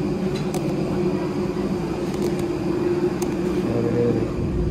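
Steady drone of parked jet airliners at the gate, a low rumble with a constant mid-pitched tone, heard through the terminal glass.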